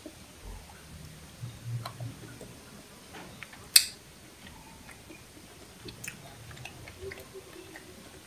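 Someone chewing grilled shrimp and cuttlefish, with scattered small clicks from fingers and shell as the shrimp is picked apart by hand. One sharp click a little before four seconds in is the loudest sound.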